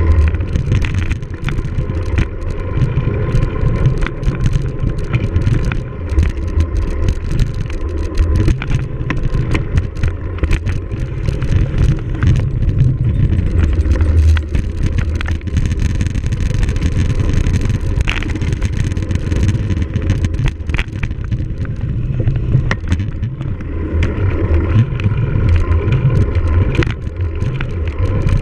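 Wind rushing over the microphone of a cyclocross bike ridden fast over rough ground, with the bike's chain and frame rattling in many short clicks.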